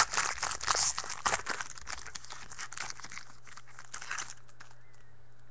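Trading-card pack wrapper crinkling as it is torn open and the cards are pulled out. There is dense crackling for the first couple of seconds, then sparser crinkles that die away a little after four seconds in.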